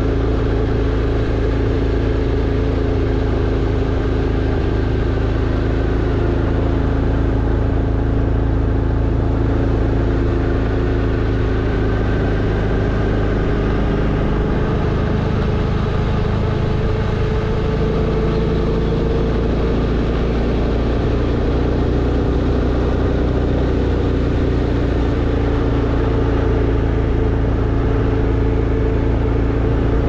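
Motorbike engine running steadily on the road, with wind rumble on the microphone. The engine note shifts about halfway through, then settles again.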